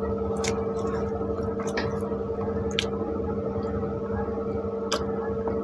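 Close-up chewing and squishy mouth sounds of soft pav bread soaked in bhaji being eaten, with a few short clicks, over a steady hum.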